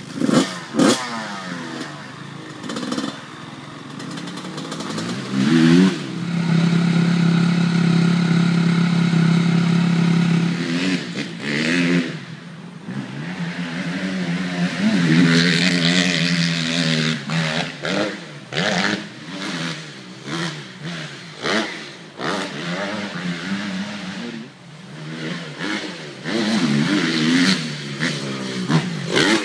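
Motocross dirt bike engine revving on the throttle, its pitch climbing and dropping with gear changes, with a long steady high-revving stretch about seven seconds in and many short throttle blips later on.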